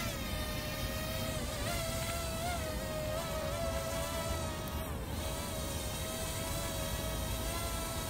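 Parrot Airborne Cargo minidrone's four small rotors buzzing steadily in flight, a high whine whose pitch wavers slightly as the drone climbs and manoeuvres.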